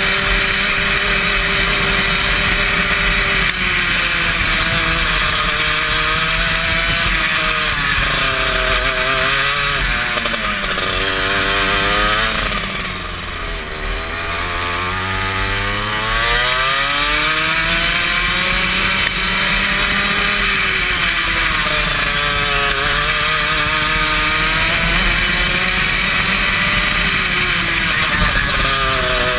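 Go-kart engine running hard, its pitch rising and falling with the throttle. About twelve seconds in it drops in pitch and loudness as the kart slows for a corner, then climbs again a few seconds later, under a loud steady rushing noise.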